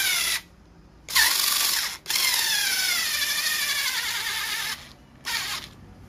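FISCH 3.6 V cordless electric screwdriver driving a screw into a hard disk drive casing. It runs in bursts of high motor whine, its pitch sagging as it tightens: it stops about half a second in, runs again just after a second, runs for nearly three seconds from about two seconds in, and gives one short burst near the end.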